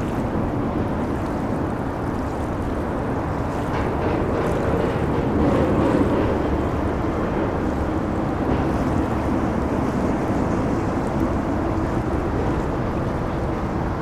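Steady rush of moving river water blended with a continuous hum of traffic crossing a road bridge, swelling slightly around the middle.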